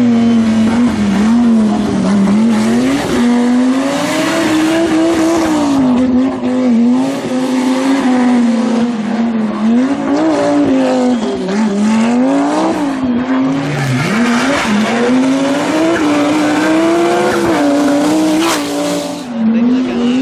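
Rally car engine driven flat out, its revs climbing and dropping again and again as it shifts gears and brakes through corners, with tyres squealing and skidding on the surface. A single sharp crack comes near the end.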